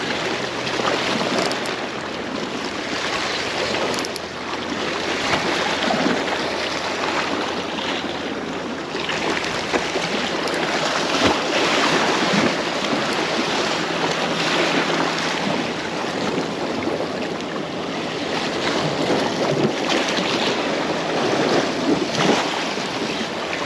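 Sea waves surging and washing over shore rocks, swelling and easing every second or two, with wind buffeting the microphone.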